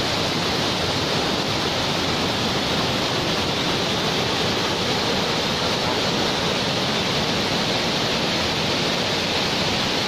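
Waterfall in heavy flow: a steady, unbroken roar of falling water.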